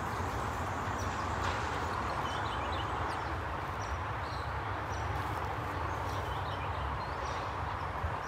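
Steady outdoor background of a low rumble and an even hiss, with faint bird chirps high above it.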